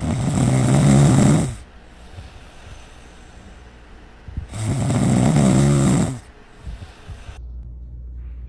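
Loud snoring: two long snores about four seconds apart, with a quieter rasp between them. Near the end the snoring stops abruptly and a steady low hum takes over.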